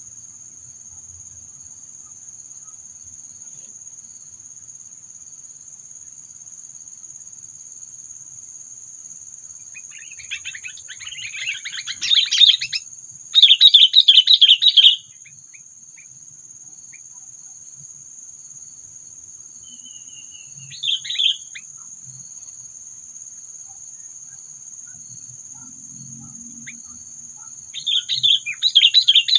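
Sooty-headed bulbuls singing in short, busy chattering phrases three times: a long run in the first half, a brief one, and another near the end. A steady high insect buzz runs underneath.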